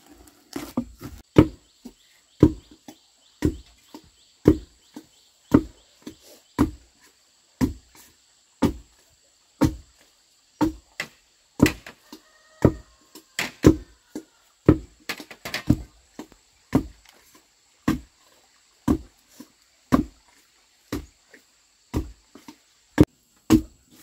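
Long wooden pestle pounding steamed rice in a carved wooden mortar: dull thuds about once a second, now and then two in quick succession.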